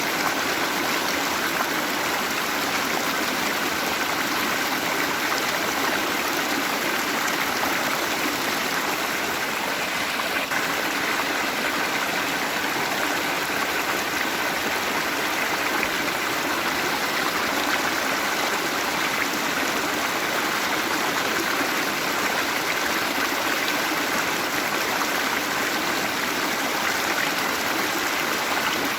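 Waterfall: a steady rush of falling and running water, unchanging throughout.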